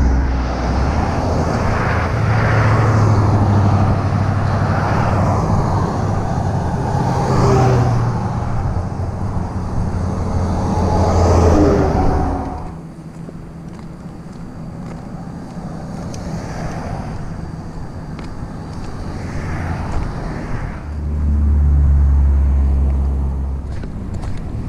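Road traffic: cars and trucks passing close by on the road, loud and swelling as vehicles go past for the first twelve seconds or so, then dropping off sharply to a fainter background, with a low rumble rising again near the end.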